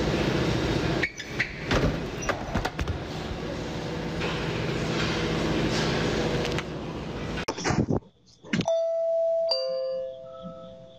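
A doorbell chime: two steady held tones sounding one after the other, a ding-dong, coming in after a sudden cut about eight seconds in. Before it, a busy noisy stretch with a few sharp knocks.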